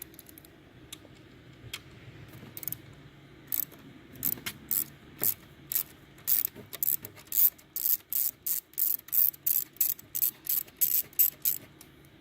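Quarter-inch ratchet with an E6 Torx socket clicking as it loosens a stock blow-off valve bolt. Scattered clicks at first, then a quick, even run of about four or five clicks a second from about seven seconds in.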